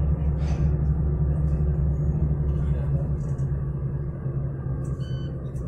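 Steady low rumble and hum of airport apron and terminal ambience, with a short high beep about five seconds in.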